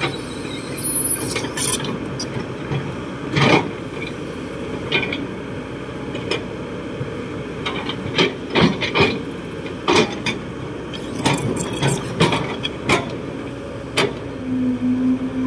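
Kobelco SK200-8 Super X excavator's diesel engine running under load while its steel bucket digs and scrapes through dry, lumpy soil, with repeated clunks and knocks. A steady low tone comes in near the end.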